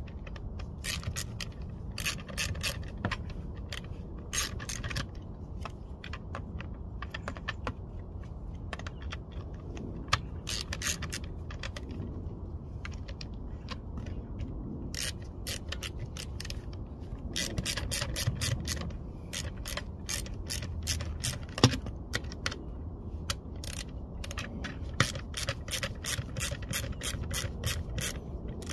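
Ratcheting wrench clicking in quick runs of strokes with pauses between, as self-tapping bolts are driven through the retaining ring onto a car blower motor.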